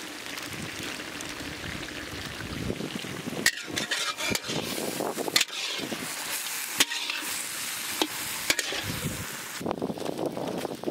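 Chicken masala frying and sizzling in a large kadai. It is stirred with a metal spatula that scrapes and clicks sharply against the pan from about a third of the way in. The frying stops near the end.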